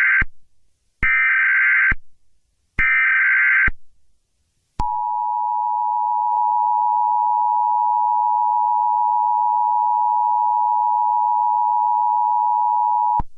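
Emergency Alert System tones announcing an alert. The tail of one digital SAME header burst and two more buzzy data bursts about a second long follow one another. About five seconds in comes the steady two-tone EAS attention signal, held for about eight seconds until it cuts off just before the end.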